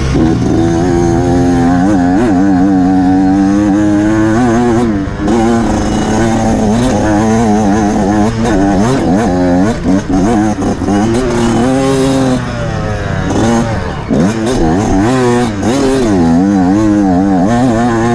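Off-road motorcycle engine being ridden hard over rough ground, its revs rising and falling continually as the throttle is worked, with a few brief drops in level as the throttle is shut off.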